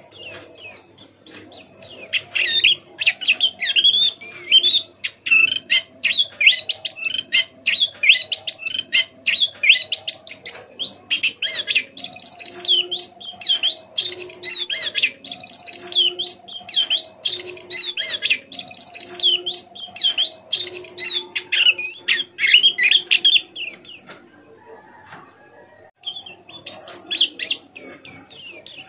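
White-eye (pleci) singing a rapid, continuous twittering song of varied high chirps and short warbles. The song pauses for about two seconds near the end, then resumes. This is the soft chattering of a pleci practising and learning its song.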